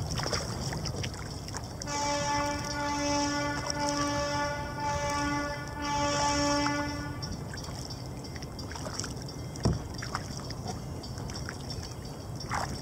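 A long horn blast on one steady pitch, starting about two seconds in and lasting roughly five seconds, with a couple of brief dips. A single sharp knock follows a few seconds later.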